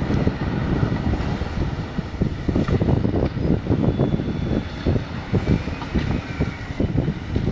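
Kobelco 220 hydraulic excavator's diesel engine running as it works, with wind gusting on the microphone.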